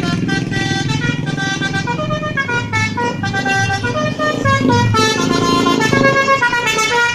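Indonesian bus's basuri 'telolet' horn playing a tune of held notes that step up and down in pitch, with the bus engine running low underneath.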